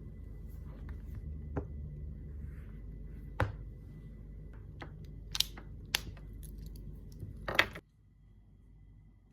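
Small objects being handled at close range: a series of sharp clicks and taps and a short rustle near the end, over a low steady hum that cuts off abruptly about three-quarters of the way through.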